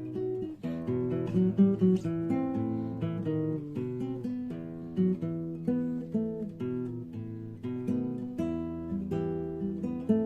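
Acoustic guitar music, chords picked and strummed at a steady pace with no singing: the instrumental intro of a song.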